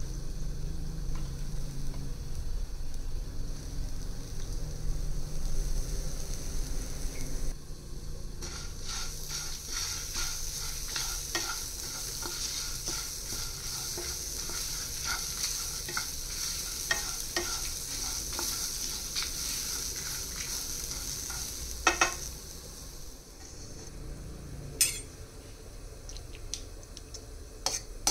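Coriander seeds, dals, dried red chillies, curry leaves and grated coconut being dry-roasted and stirred with a wooden spatula in a non-stick pan: a sizzling hiss with many short scrapes of the spatula, for the ground masala of a sambar. Two sharp knocks come later on.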